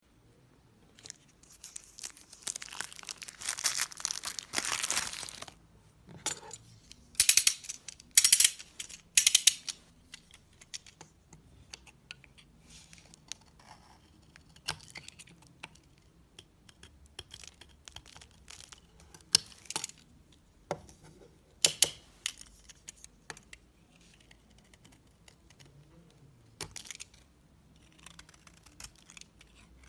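Paper wrapper of a soap bar being crinkled and torn off: dense crackling for a few seconds, then loud bursts about seven to nine seconds in. After that come scattered short clicks and scrapes as the bar is handled and a knife cuts into the soap.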